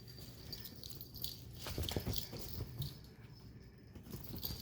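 Scuffling with scattered clicks, knocks and low thumps, busiest from about two seconds in, as two leashed pet monkeys meet and move about.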